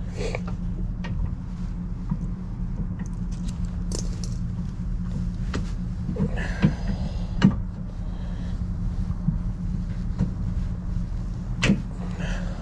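Metal clicks and knocks from a locking hitch pin being worked into a trailer hitch receiver, a handful of separate strikes spread out, over a steady low hum.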